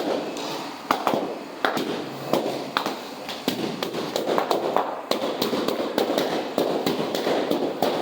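Balloons being popped one after another: sharp irregular bangs, roughly one or two a second, over a steady background noise.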